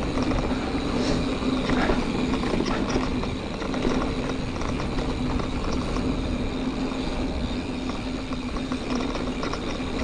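Giant Fathom 2 29er hardtail mountain bike being ridden on a dirt trail: tyres rolling with wind on the camera, a steady hum, and scattered light clicks and rattles over bumps.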